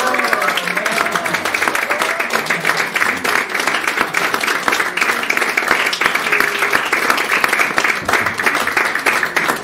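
A small audience applauding: many hands clapping steadily and densely throughout.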